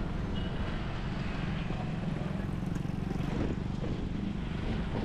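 Street traffic: a steady low rumble of motorcycles and cars passing close by.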